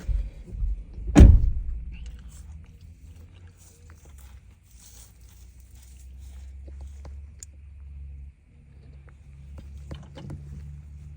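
A single heavy thunk about a second in, followed by a low steady hum with a few faint clicks.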